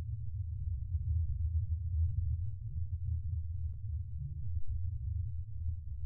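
Sci-fi spaceship ambience sound effect: a steady, deep, even hum with nothing else happening.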